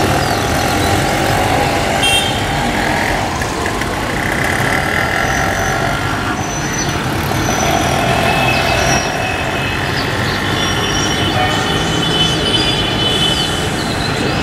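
Steady road traffic noise with passing vehicles, and thin high chirps and whistles over it.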